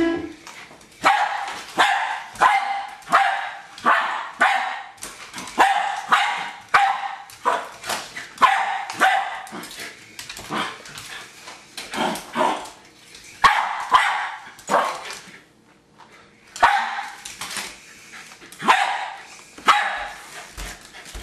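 Jack Russell terrier barking in a long run of sharp barks, about two a second, with a brief break about fifteen seconds in.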